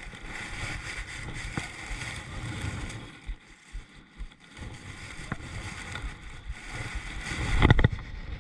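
Kayak on the water with an uneven low rumble of wind on the microphone and water against the hull, a few light clicks, and a heavy thump near the end.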